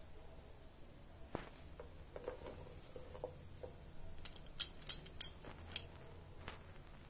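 Light handling noises as a hand moves through fresh coriander leaves in a plastic bowl: a few soft taps, then a quick run of four or five sharp, high clicks a little past the middle.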